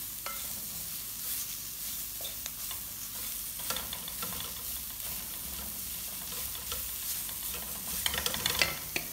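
Sliced onion, carrot and chilli sautéing in a little oil in a stainless steel wok, sizzling as a wooden spatula stirs and scrapes them against the pan. A run of louder scrapes and knocks comes near the end.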